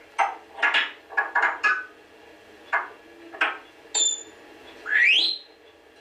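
Pet talking bird chattering in a quick series of short chirps, then a clear whistle and a rising whistle near the end.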